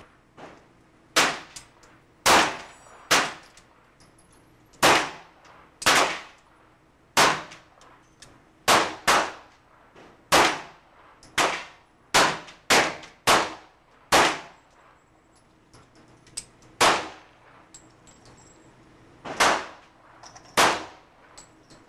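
Handgun shots fired by two shooters in neighbouring booths of an indoor range, about seventeen loud shots at an irregular pace, some in quick pairs, each followed by a short echoing tail.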